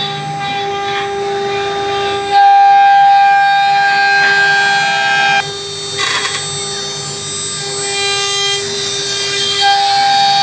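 CNC router spindle cutting a 15 mm PVC foam (plaswood) sheet: a steady high whine over cutting noise. The tone changes and grows louder about two and a half seconds in, drops back after about five and a half seconds, and rises again near the end.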